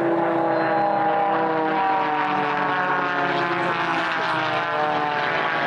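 Propeller aircraft's piston engine heard in flight as it passes, a steady hum whose pitch slowly falls.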